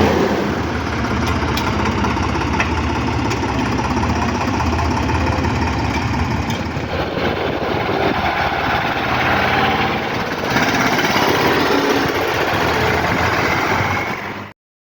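Farm vehicle engine running steadily, then cutting off abruptly near the end.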